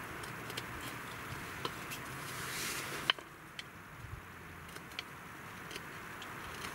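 Knife blade cutting into a wooden stick while carving a dovetail notch: scattered small clicks of the edge biting the wood, and a longer scraping cut about two and a half seconds in that ends in a sharp click just after three seconds.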